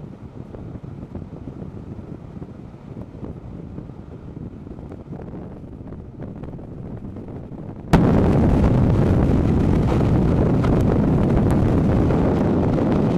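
Passenger train running on the track, heard from inside the carriage as a steady low rumble. About eight seconds in it suddenly becomes much louder, a dense rushing noise that stays loud to the end.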